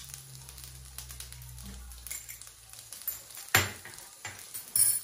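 Rice vermicelli sizzling in butter in a frying pan over a low flame. A sharp knock about three and a half seconds in and a short clatter near the end, as harissa is added to the pan.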